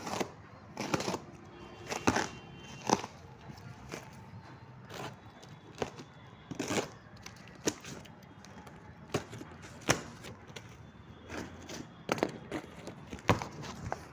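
Cardboard shipping box being handled and its clear packing tape slit open with a utility knife: irregular crackles, scrapes and rustles of tape and cardboard.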